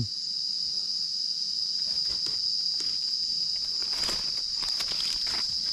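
A steady, high-pitched chorus of forest insects keeps up an unbroken buzz. A few soft rustles of dry leaf litter come through it around the middle and near the end.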